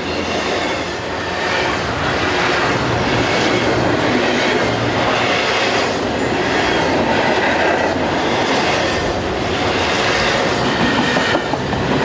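Double-stack container freight train passing close by: a steady, loud rush of wagons and wheels on the rails.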